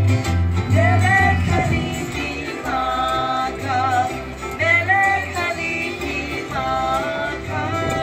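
Music: a song with strummed acoustic guitar, a steady bass line and a high, wavering melody line.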